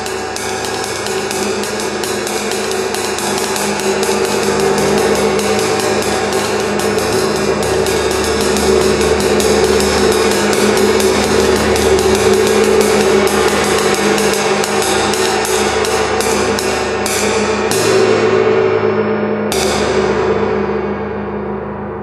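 A 22-inch wind gong, which its owner believes to be a Turkish-made Zildjian prototype, played with a fast roll of wooden drumsticks. Rapid strikes build a dense ringing wash that swells in loudness; the strikes thin out and stop a few seconds before the end, and the gong rings on and fades.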